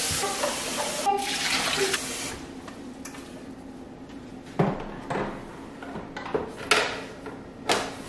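Kitchen tap water running into an espresso machine's plastic water tank, stopping about two seconds in. A few sharp knocks follow later on.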